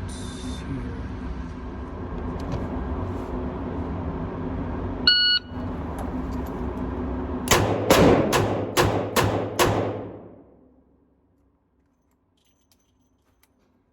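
A shot timer beeps once, and about two seconds later a revolver fires six rapid double-action shots, roughly two a second. A steady background hum runs under it all, then fades to near silence.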